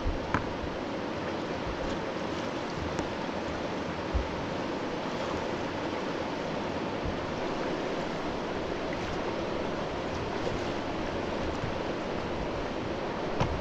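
Steady rushing of a river running high in spring flood, about 430 m³/s, with a couple of brief low thumps, about half a second and four seconds in.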